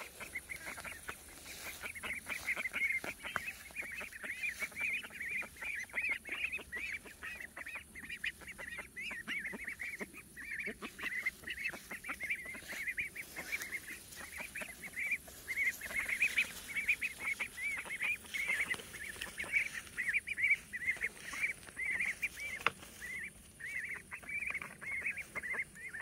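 Young Indian Runner ducks in a small flock, peeping continuously: a steady stream of short, high calls, several a second.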